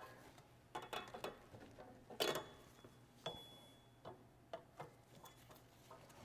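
Dull side cutters clicking and scraping against the return spring and shoe hardware of a 2005 Toyota Camry's rear drum brake while prying at the spring to pop it off. The clicks are faint and irregular, the loudest about two seconds in, and a couple ring briefly like metal.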